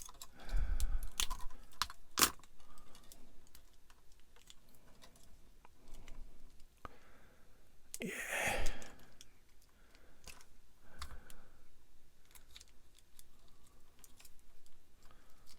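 Small plastic model-kit parts being handled and pressed together on a workbench: scattered light clicks and taps, with a louder rustle of handling about eight seconds in.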